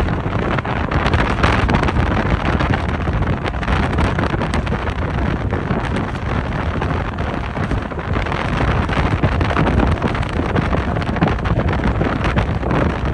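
Wind buffeting the microphone over the steady low rumble of a passenger ferry underway.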